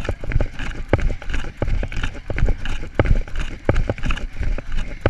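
A runner's footsteps on a paved road at a fast race pace, about three strides a second, each footfall jolting the hand-carried camera.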